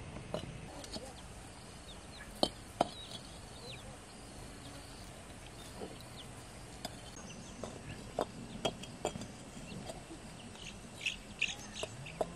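Fired clay bricks knocking and clinking against each other as they are set by hand into a path edging: a series of short, sharp knocks, the two loudest close together about two and a half seconds in. Small birds chirp in the background, most near the end.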